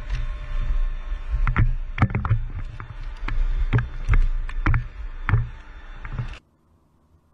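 Wind and handling rumble on a body-worn camera's microphone, with irregular sharp knocks and clatter from the wearer's movement and gear. It cuts off suddenly about six seconds in.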